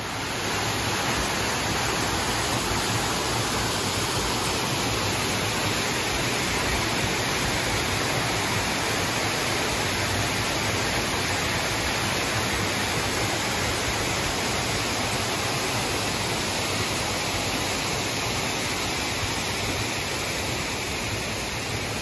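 Water rushing steadily as it cascades down a mountain waterfall over rock ledges.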